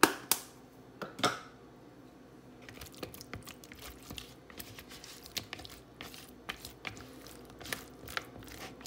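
Raw shrimp in a spice marinade being stirred with a spatula in a plastic bowl: irregular wet squishing with small clicks and scrapes of the spatula against the bowl. A few sharp knocks come in the first second and a half.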